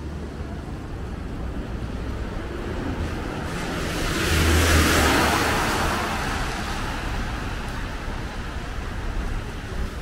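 A car drives past close by on a city street, its noise swelling to a peak about halfway through and fading away, over a steady hum of traffic.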